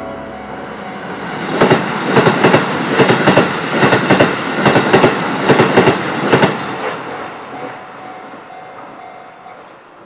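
Keisei Matsudo Line electric commuter train passing over a level crossing. About a second and a half in, its wheels start clacking over the rail joints in quick pairs for roughly five seconds, and then the rumble fades away.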